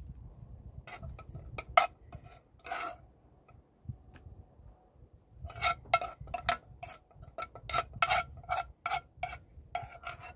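A metal spoon scraping and clinking against a metal pan as stuffing is scooped out. The clinks are sharp and irregular, each with a short ring, a few early on and then coming thick from about five and a half seconds in.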